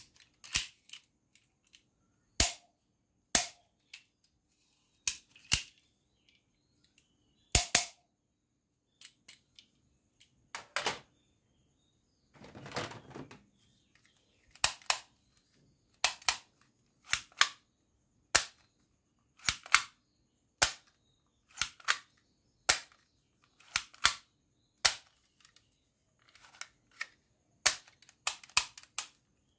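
Plastic toy pistol's trigger mechanism being clicked over and over: a long irregular series of sharp dry clicks, about one a second, with a brief plastic rattle about halfway through.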